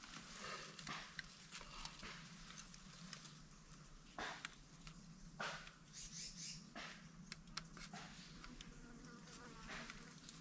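Faint insect buzzing close by, with soft rustles and light knocks of hands working sticks, soil and a woven bamboo basket trap.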